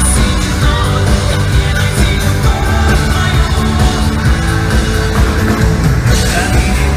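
Loud pop-rock band music with heavy drums and strong bass.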